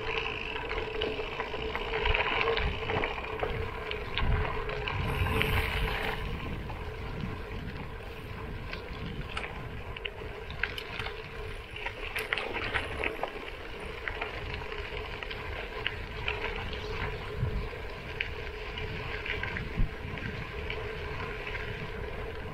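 Gravel-bike tyres rolling over a gravel road, with a continuous crunch and many small clicks of stones, over a steady hum and wind rumble on the microphone.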